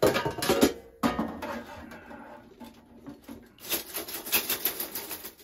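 Metal clock movement parts clattering and rattling in a wire cleaning basket as it is handled after the cleaning cycle. A run of quick, light clinks comes near the end.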